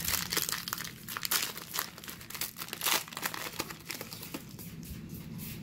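Plastic wrapper of a 2014 Contenders football card rack pack being torn open and crinkled by hand: a run of irregular crackles and rips, loudest about a second and a half and three seconds in.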